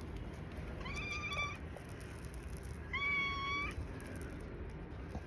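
A cat meowing twice, two fairly level, drawn-out calls about two seconds apart, the second louder.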